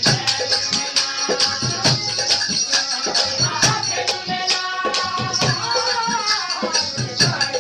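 Live tabla and harmonium music: a quick, steady tabla beat under held harmonium chords, with a high jingling rattle running through it.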